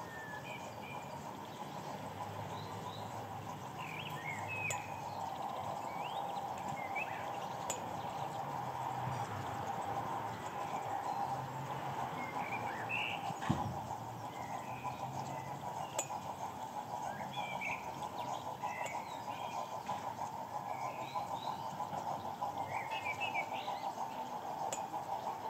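Small birds chirping in short, scattered calls over a steady background hum, with a single knock about halfway through.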